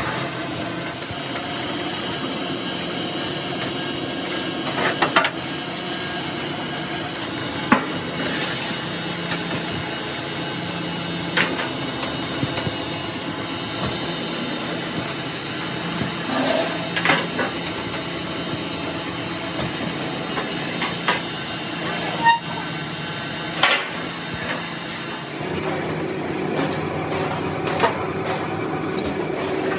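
Workshop noise: a steady engine hum whose tone shifts about three-quarters of the way through, with scattered sharp knocks, about seven in all, of the kind made by metal striking metal during truck body repair.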